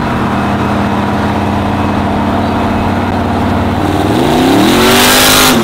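Pickup truck engine running steadily, then revving hard about four seconds in, its pitch climbing quickly with a loud rushing hiss before breaking off abruptly near the end.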